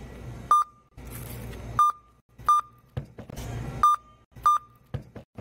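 Self-checkout kiosk's barcode scanner beeping five times, one short beep each time an item's barcode is read. Light handling noise is heard between the beeps.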